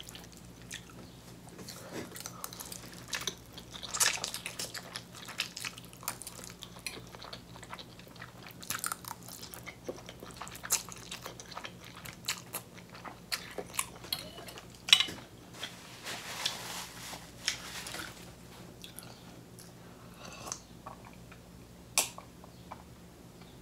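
Close-miked mouth sounds of a person eating spicy black bean noodles: wet chewing and slurping with many small sharp clicks, the loudest about halfway through.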